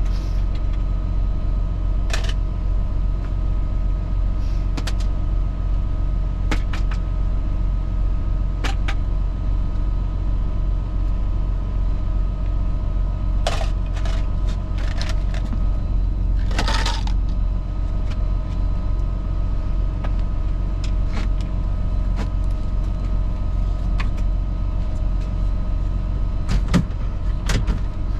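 Semi truck's diesel engine idling with a steady low drone, overlaid by scattered clicks and light knocks, with two louder rattling clatters around the middle.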